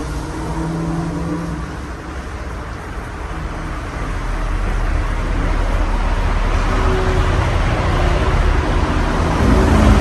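53-inch Casablanca Halogen Star ceiling fan running with four blades: a steady rush of moving air with a low hum, growing louder and more rumbling about halfway through.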